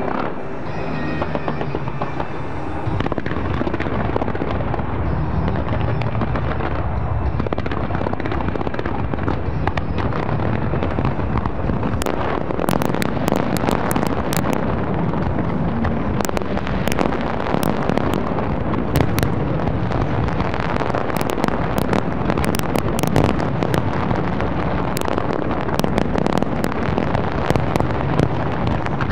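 Large fireworks display: a continuous barrage of explosions, with many sharp crackling bursts from about twelve seconds in.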